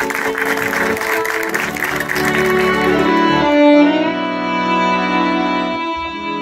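Bowed strings, violin and cello, playing slow sustained chords, with clapping dying away over the first three seconds.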